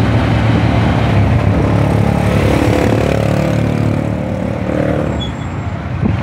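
Steady low rumble of a moving vehicle heard from inside its cabin: engine and road noise.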